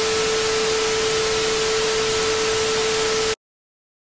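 TV static transition sound effect: an even hiss of white noise with a steady mid-pitched tone under it, cutting off suddenly near the end into silence.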